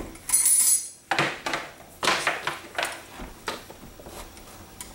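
Knocks and clinks of a Zoeller drain pump being set down into its plastic pump basin and shifted into place, with a ringing metallic clink about half a second in, then several sharp knocks.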